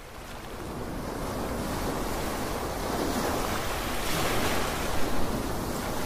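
Sea surf breaking and washing over a rocky shore: a steady rush of waves that fades in over the first couple of seconds, with a couple of louder surges about five seconds in.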